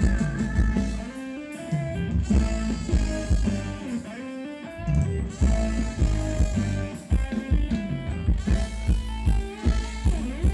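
Band playing upbeat Thai ramwong dance music with a steady beat. The bass and drums thin out about a second in and come back in full about halfway through.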